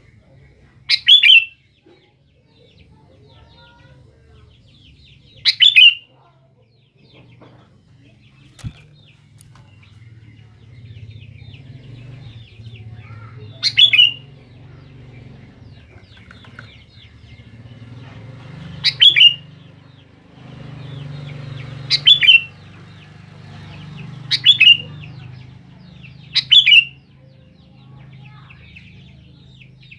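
Sooty-headed bulbul giving seven short, loud calls at irregular intervals, over faint twittering from other birds and a low hum.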